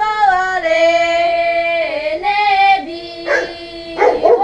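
Girls singing a folk song in long, held notes, unaccompanied. A dog barks twice near the end.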